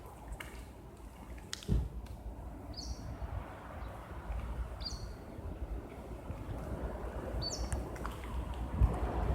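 Outdoor ambience of a low steady rumble, with a bird giving short, falling chirps every couple of seconds. A couple of sharp knocks come in the first two seconds, and the rumble builds near the end.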